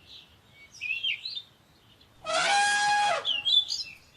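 Elephant trumpeting: one loud call about a second long, over birds chirping in the background.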